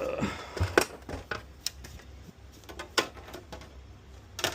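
Scattered sharp clicks and knocks of an opened PS5 console and its parts being handled, about five separate taps spread over a few seconds.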